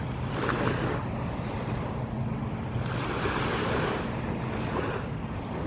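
Boat under way on open water: a steady low engine hum beneath rushing water, with wind buffeting the microphone.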